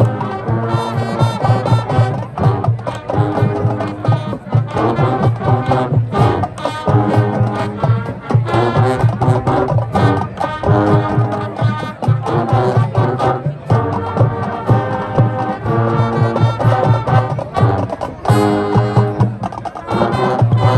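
High school marching band playing a field show: brass section sounding full chords over marching drums keeping a steady beat.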